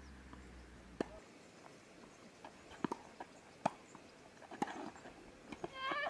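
Tennis balls being struck by rackets and bouncing on a hard court during a rally: a series of sharp, short pocks, irregularly spaced.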